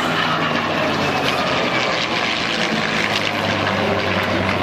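A jet fighter and a propeller-driven warbird flying past in formation: a steady engine roar, with a high whine that slowly falls in pitch during the first second or so.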